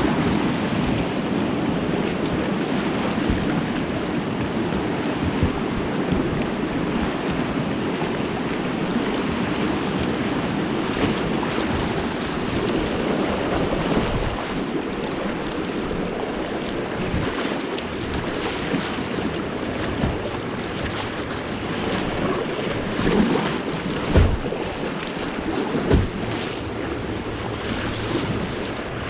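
River water rushing steadily, with wind buffeting the microphone and a few low thumps near the end.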